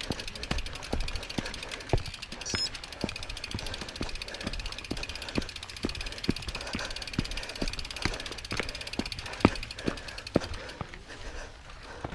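Mountain bike rear freehub ratcheting rapidly as the rider coasts, with irregular clicks and knocks from the bike jolting over rough ground.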